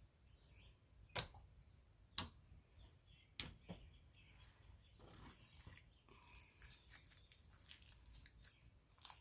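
Clear jelly slime with beads being squished and stretched by hand: three sharp clicks in the first few seconds, then faint, quick crackling and popping from about halfway through.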